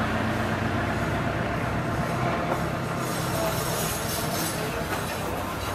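Steady mechanical background rumble with a low hum and a hiss that turns brighter about three seconds in, like passing vehicle noise.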